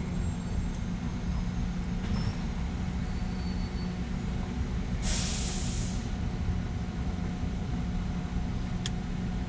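Steady low engine rumble with a steady hum, broken about five seconds in by a second-long burst of air hiss, and a sharp click near the end.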